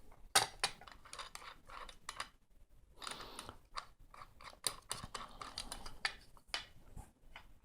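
Irregular faint clicks and light knocks of a budget metal-and-plastic mic stand being handled and its joints worked, with a brief rustle about three seconds in.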